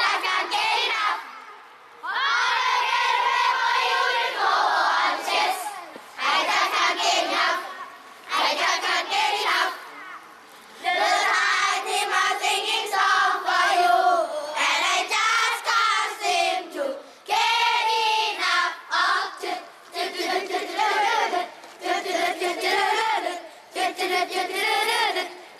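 A group of children singing and chanting together in unison, in phrases of a few seconds each with short breaks between them.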